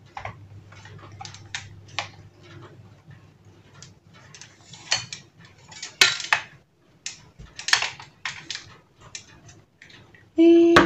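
Irregular clicks, knocks and scrapes of a ring light and its tripod light stand being handled: plastic and metal parts clattering as the light is turned and the stand's fittings and cable are worked by hand.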